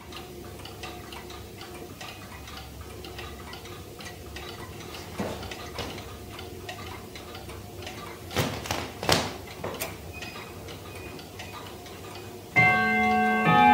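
Vedette pendulum wall clock ticking steadily, with a few louder clicks around eight to ten seconds in. Near the end its chime starts playing a melody of several ringing notes at the hour.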